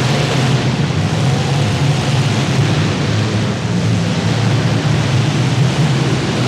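Engines of several compact demolition derby cars running hard at once, a loud, steady din.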